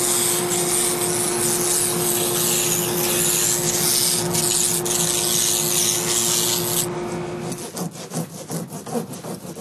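A power tool grinding or sanding decoy material, running steadily with a hum and a hiss of abrasion. It stops about three-quarters of the way through, and a run of short, quick rubbing strokes follows, as of hand sanding or rasping.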